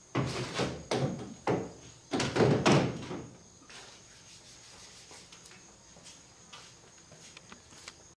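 Kayak paddle clunking and scraping against the PVC-conduit rack and plastic kayak hull as it is slid into the rack, a run of hollow knocks over the first three seconds.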